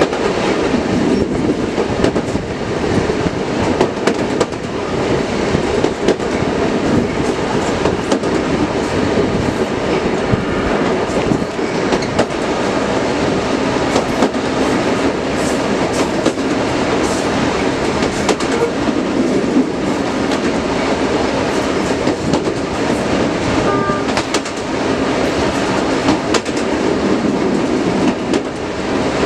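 Diesel locomotive running along the line, heard from the side of the cab: a steady dense rumble of engine and running gear, with wheels clicking irregularly over rail joints.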